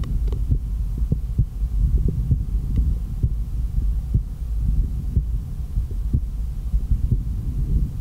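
A human heart beating, heard through the diaphragm of an MDF ProCardial cardiology stethoscope held on the chest: regular, clear heartbeats over a steady low rumble.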